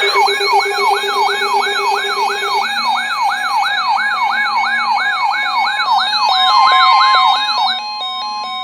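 Electronic siren in a fast yelp, its pitch sweeping up and down about three times a second over steady tones. It cuts off about eight seconds in, and a run of stepped electronic tones begins.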